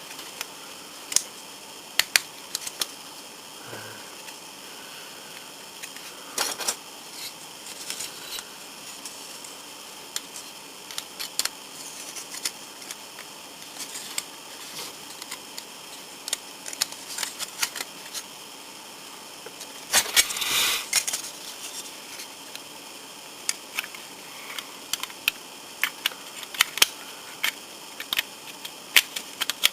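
Scattered sharp clicks and taps of plastic model kit parts being handled and fitted together, with a brief rustling scrape about twenty seconds in.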